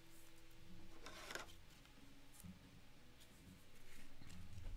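Faint handling noise of a trading card in a plastic holder being picked up and moved by hand: soft rustles and a few light ticks.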